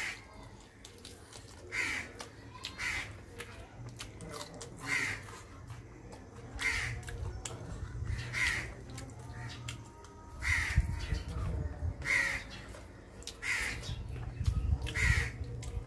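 A crow cawing repeatedly, about nine short calls one every second or two, with bouts of low rumble about two-thirds of the way through and near the end.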